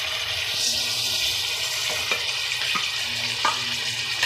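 Raw chicken and oil sizzling in an aluminium pot, a steady watery hiss, with a few light clinks of metal on the pot as crushed chilli, salt and turmeric are tipped in.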